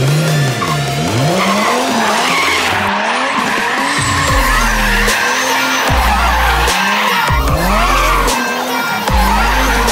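Car drifting on concrete: the engine revs rise and fall again and again as the throttle is worked, and the tyres squeal and skid.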